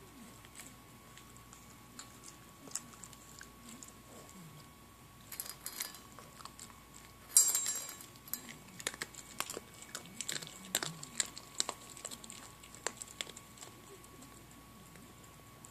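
A puppy crunching dry kibble from a stainless steel bowl: scattered sharp crunches, one sudden loud noise about halfway through, then a quick run of crunches.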